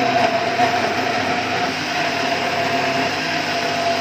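Small countertop blender running steadily at full speed, its motor whining as it blends frozen milk, banana pieces and milk in the plastic jug.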